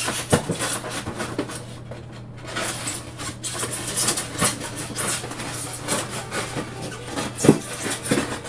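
A sharp craft knife cutting through a styrofoam cooler wall, with irregular scratchy scraping and squeaking strokes as the blade works through the foam.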